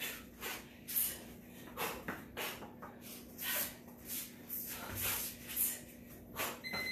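Sharp, breathy exhalations on each elbow and knee strike, about two a second, from someone working through a fast striking combo. Near the end a workout interval timer starts beeping, marking the end of the round.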